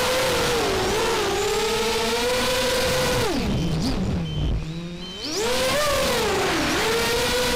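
FPV racing quadcopter's motors whining from the onboard camera, the pitch rising and falling with the throttle. About three seconds in the throttle is cut and the whine drops low and quieter for about two seconds while the quad rolls upside down, then it climbs back up as power returns.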